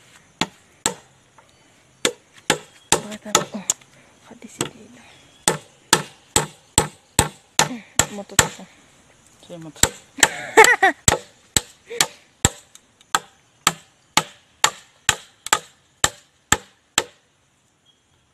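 Machete chopping into a green bamboo post, a long series of sharp strikes about two to three a second with short pauses, stopping shortly before the end. The blade is cutting the hole in the upright post that a ladder rung fits through.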